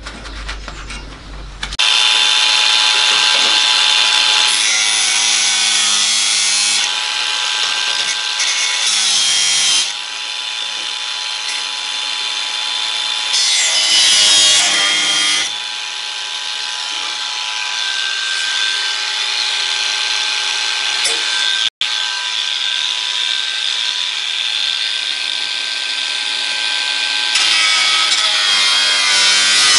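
Cordless 18 V angle grinder with a thin cut-off disc cutting through rusty sheet steel of the car's sill and floor edge, starting about two seconds in. Its steady whine shifts in pitch and level as the disc bites into the metal and eases off, with one momentary break just after the middle.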